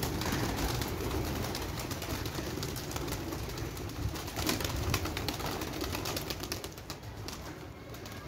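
Domestic pigeons cooing in a flock, over a steady rushing noise with scattered clicks.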